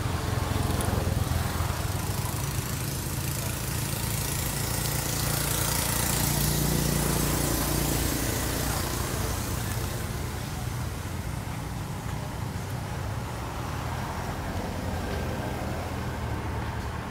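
A motor vehicle engine running steadily with a low hum and hiss, swelling louder for a few seconds around the middle.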